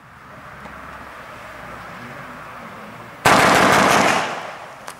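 Consumer firework battery (Weco Funky Curls cake): a steady hiss, then about three seconds in its first shot goes off with a loud rushing burst that fades over about a second, as a comet climbs, followed by a couple of sharp cracks near the end.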